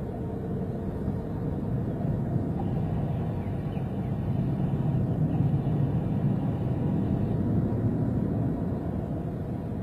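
Low, steady rumble of an Airbus A380's four jet engines at takeoff thrust during the takeoff roll, swelling a little past the middle and easing near the end.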